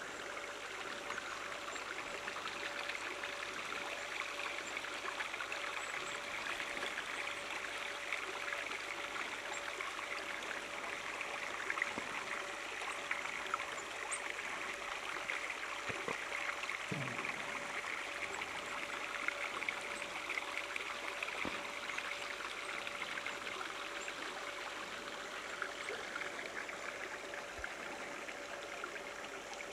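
Mountain stream running over stones: a steady, even rush and trickle of water.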